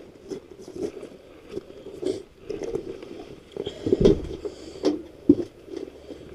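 Irregular knocks and scrapes of handling, with a heavier thump about four seconds in.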